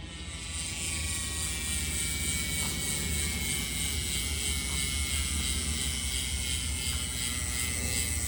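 Chris King rear hub freewheeling: its ratchet teeth click so fast that they blend into a high-pitched buzz. The buzz swells over the first second, then holds steady.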